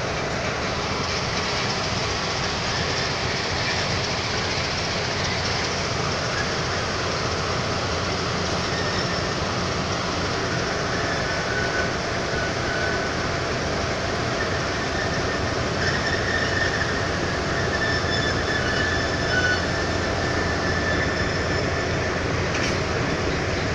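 Diesel locomotives passing at low speed close by, their engines running with a steady drone over the rumble of the wheels. High wheel squeals rise from the rails about halfway through and again later.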